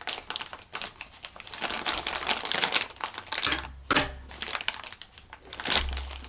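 Crinkling and rustling of a plastic packaging bag being opened and handled, with dense irregular small clicks and taps.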